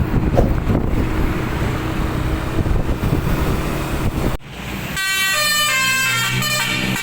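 Rumbling vehicle and road noise that cuts off abruptly about four seconds in. About a second later a bus's 'telolet' musical horn starts, a multi-trumpet air horn playing a melody of held notes that step from one pitch to the next.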